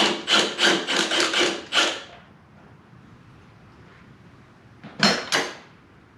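Cordless impact wrench hammering in a rapid string of short bursts, backing out a fender bolt whose welded-on nut has broken free; the bursts stop about two seconds in, and two more short bursts come about five seconds in.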